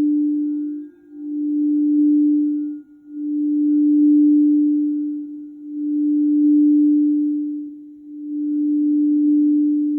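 Quartz crystal singing bowl sounding one sustained low tone. The tone swells and fades about every two and a half seconds, almost dying away between swells.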